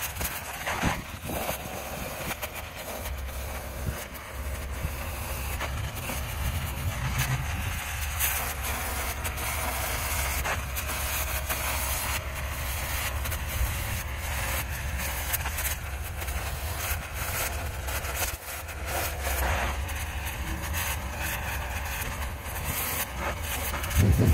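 Oxy-fuel cutting torch hissing steadily as it melts through a worn steel excavator-blade cutting edge, with constant crackling and popping of molten slag and sparks, over a low steady rumble. The cut is slow because dirt is packed behind the worn-down edge. A sharp knock comes near the end.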